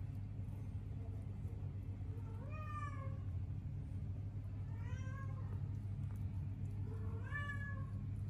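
Newborn kittens mewing: three short, high cries that rise and then fall, a second or two apart, over a steady low hum.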